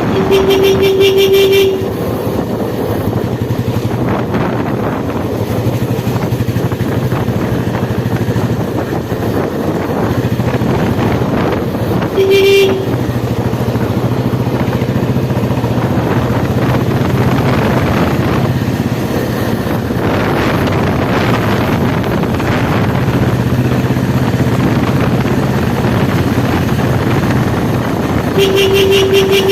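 Royal Enfield Bullet single-cylinder motorcycle engine running steadily under way, with road and wind noise. A vehicle horn honks three times: a long honk at the start, a short one near the middle, and another near the end.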